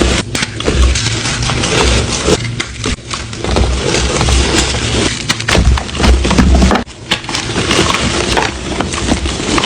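Gym chalk being crushed and crumbled, a dense crackling with dull low thuds and a brief pause about seven seconds in.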